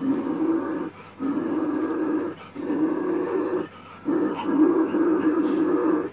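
A man's low guttural growl vocals, extreme-metal style, sung into a microphone as a string of rough growls. Each growl lasts about a second, with short gaps between.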